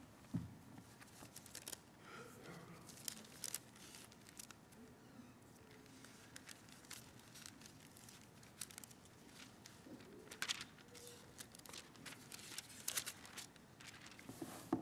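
Faint rustling and crinkling of paper, as pages are turned and handled at a lectern, with scattered small clicks throughout.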